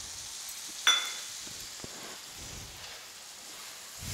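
Masala and green peas sizzling faintly in a metal kadhai, with one sharp ringing clink of the metal slotted spatula against the pan about a second in, then soft stirring.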